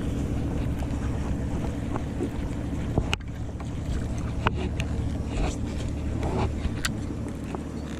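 Fishing boat's engine running with a steady low hum and wind noise. A few sharp clicks or knocks come about 3, 4.5 and 7 seconds in.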